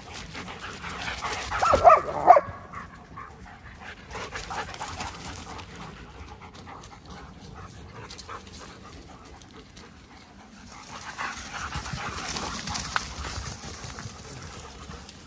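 German shepherds playing: a dog gives two loud, high yelps about two seconds in, and later the rustle of many paws running over dry leaf litter swells and fades.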